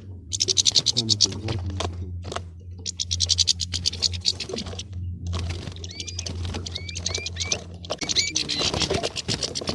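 European goldfinches chattering and squabbling: a rapid, dry, buzzy twitter in dense bursts, with short curling call notes about six to eight seconds in. A steady low hum runs beneath until about eight seconds in.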